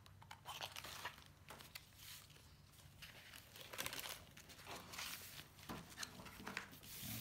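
Scissors cutting through a paper-backed sticker sheet: faint, irregular snips and crisp paper rustling.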